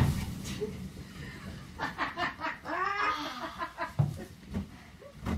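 A girl giggling and squealing while lying among a pit of balloons just after jumping in, with a couple of dull thumps as she shifts among them.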